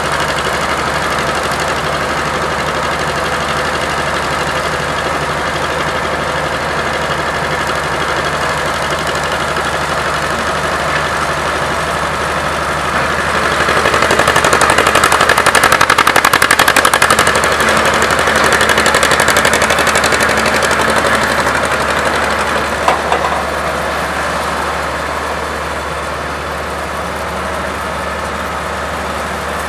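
Engines of vintage excavators at work, a Weserhütte Pionier cable-operated shovel loading its bucket beside a hydraulic excavator, running steadily. About halfway through, the engines grow louder for several seconds under load, then settle back.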